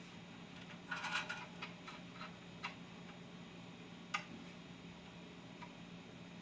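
Faint, scattered light clicks and taps as a soldering iron and 3D-printed PLA plastic parts are handled during plastic welding, with a short cluster about a second in and single ticks after, over a low steady hum.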